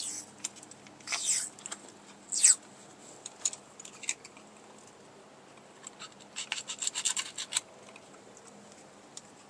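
Cloth wiring-harness tape being pulled off its roll and wrapped around the edge of a harness loom: a few short rasping pulls, then a rapid run of crackles a little past the middle.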